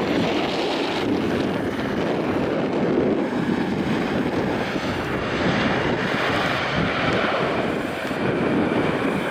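Steady rush of a Boeing 737-800's CFM56 jet engines as the airliner rolls out on the runway just after landing and passes by, mixed with wind buffeting the microphone.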